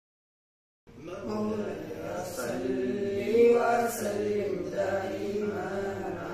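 A group of boys singing a nasheed together, starting about a second in.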